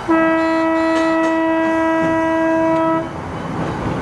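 A tram's horn sounding one steady, unwavering note for about three seconds, then cutting off.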